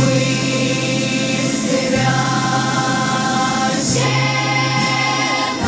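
Choir singing a Cossack song with instrumental accompaniment, holding long notes as the chord and bass change about every two seconds.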